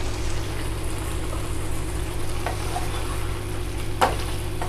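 Cauliflower and pea kurma simmering in a non-stick frying pan over a steady low hum. About four seconds in, a wooden spatula stirs it and knocks once sharply against the pan.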